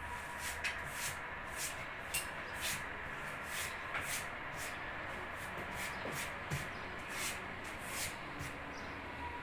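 A series of short, brisk swishing strokes, about two a second at an uneven pace, over a steady low hum.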